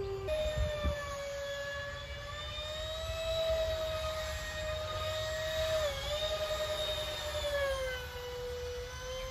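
Twin 70 mm electric ducted fans of a Sebart MiG-29 RC jet whining in flight. The pitch wavers, dips briefly about six seconds in, and falls near the end.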